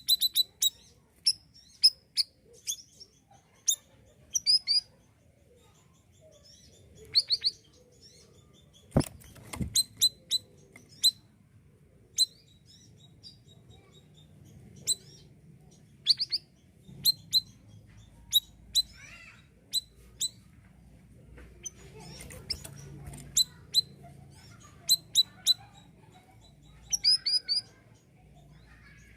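Male siri-siri bird calling: short, sharp, high chirps in scattered bursts and quick clusters, with a single knock about nine seconds in.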